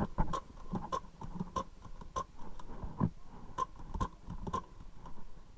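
Paintball markers firing: a dozen or so sharp pops at irregular intervals, over a faint steady high tone.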